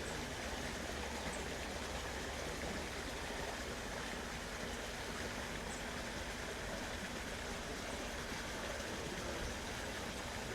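Steady rush of a small river's flowing water, unchanging throughout.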